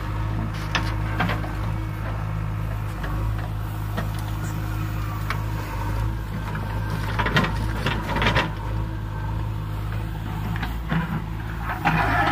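JCB 3DX backhoe loader's diesel engine running steadily while the backhoe arm digs and swings. Clanks and clatter of the bucket dumping earth into a steel trailer come about seven to eight and a half seconds in and again near the end.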